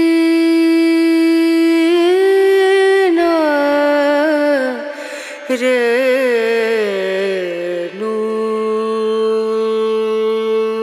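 A single voice chanting a slow devotional melody of long held notes, with wavering ornamented runs in the middle and a long low note near the end.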